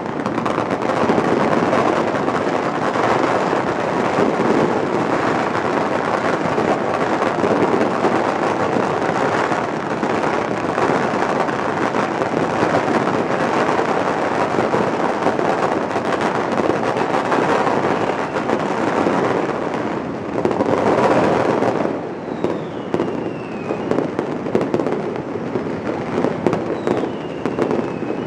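City-wide firecrackers and fireworks going off all at once, a dense unbroken crackle of countless bangs. About three-quarters through it thins into separate pops and bangs, with two short falling whistles.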